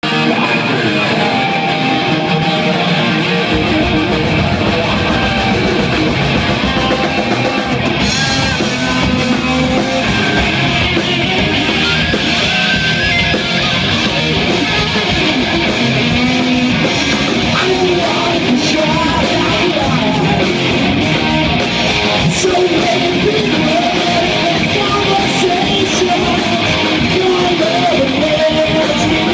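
A live rock band playing loud electric guitars, bass and drums; the sound fills out in the low end a few seconds in and brightens about eight seconds in as more of the band comes in.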